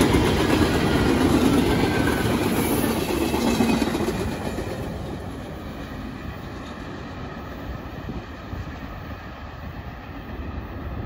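The last cars of a freight train rolling past on the rails, ending in a passenger coach, with wheels clattering over the track. The noise is loudest at first and fades from about four seconds in as the end of the train moves away.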